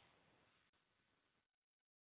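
Near silence: faint room tone that drops to dead silence near the end.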